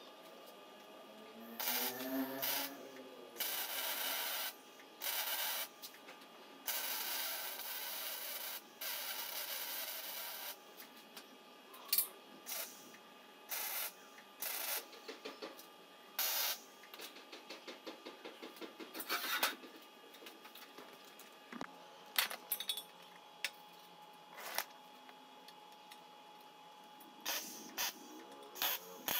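Scraping and rubbing of hand work on a part. It comes in steady stretches of a few seconds early on, then breaks into many short strokes and clicks.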